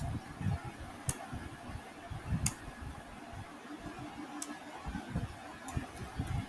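Computer keyboard keys clicking now and then, a second or more apart, over steady low room noise.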